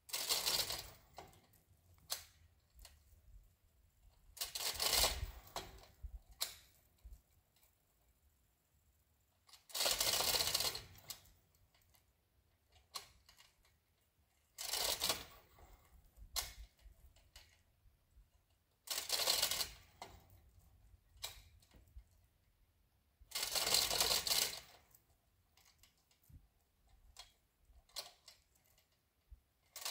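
A 2-ton chain fall being hauled by hand: its hand chain rattles and the ratchet clicks in pulls about a second long, roughly every five seconds, with faint ticks between the pulls.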